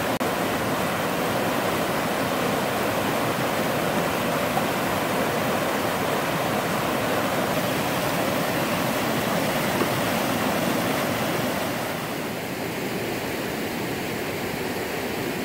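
Steady rushing of river rapids, whitewater pouring over rocks. It gets a little quieter near the end.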